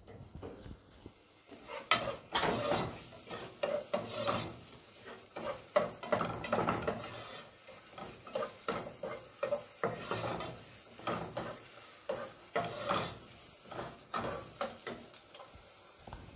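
Chopped onion and garlic sizzling in butter in a nonstick saucepan, with a steady high hiss, while a spatula stirs and scrapes them around the pan in irregular strokes, busiest in the first half.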